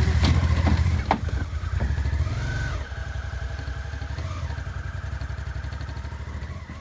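Motorcycle engine running with a steady low pulse and a few clicks early on; it drops in level about three seconds in and fades.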